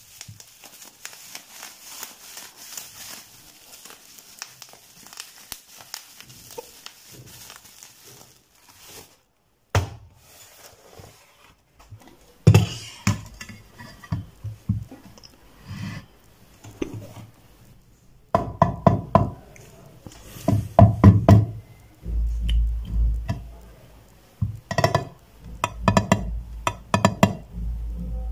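Bubble wrap crinkling and crackling as it is pulled off a glass bathroom scale. From about halfway on come irregular knocks, taps and rubbing as the tempered-glass scale is handled on the tabletop.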